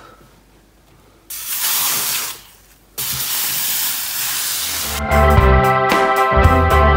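Steam hissing from a clothes iron at its hottest setting pressed onto dampened wood veneer: a short burst about a second in, then a longer hiss from about three seconds. Background music with a strong bass comes in about five seconds in and is the loudest sound by the end.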